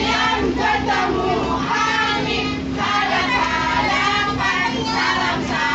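A group of young children singing together, over the steady low hum of a moving city bus.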